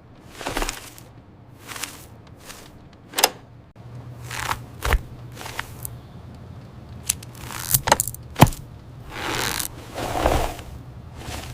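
A scattered series of light clicks, knocks and scrapes, about a dozen, with a couple of short swishes near the end.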